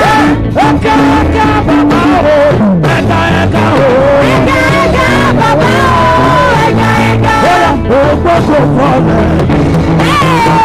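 Live gospel band music: a singer's voice gliding over held instrument chords and a steady beat.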